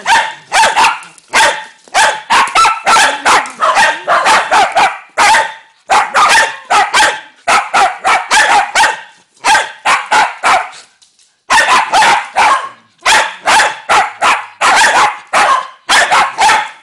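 Several dogs barking loudly in rapid, overlapping volleys while they play, with short lulls about six and eleven seconds in.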